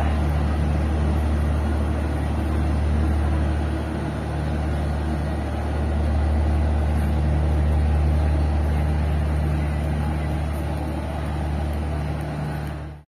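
Steady low mechanical hum from a standing LHB express train, from the diesel generator sets in its end-on-generation power car at the rear, cutting off abruptly near the end.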